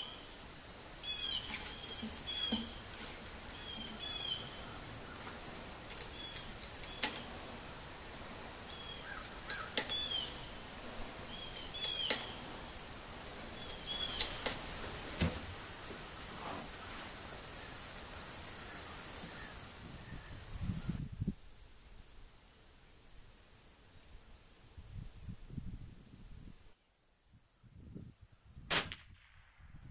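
Sharp metallic clicks from a Winchester 94/22 lever-action .22 rifle being handled and loaded, over a steady high insect drone and a bird's short call repeated every second or two. The insect drone stops abruptly about two-thirds of the way through.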